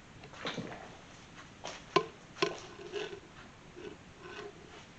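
Knocks and clinks of metal parts being handled on a workbench, two sharp ones about two seconds in, each leaving a brief ringing tone.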